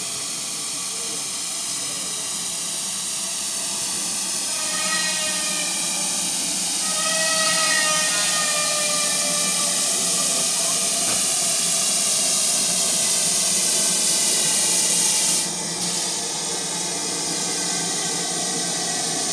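GWR Modified Hall 4-6-0 steam locomotive No. 7903 drawing slowly along a station platform, its steam hissing steadily and growing louder as it approaches. A short wavering tone sounds about five to eight seconds in, and the hiss drops out for a moment about fifteen seconds in.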